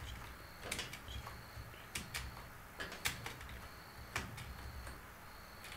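Computer keyboard keys clicking as numbers are typed: irregular single keystrokes, some in quick pairs, about a dozen in all.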